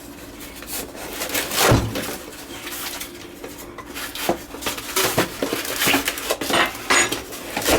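Parts of a new angle grinder being unpacked from the box and handled: irregular clicks, light knocks and rustling, with one heavier thump about two seconds in.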